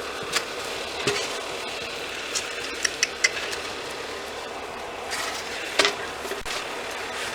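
A machine's engine running steadily, with scattered sharp clicks and clanks, the loudest near the end.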